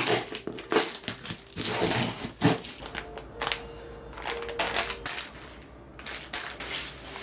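Crinkling and rustling of something being handled, in a run of short irregular strokes, busier in the first half.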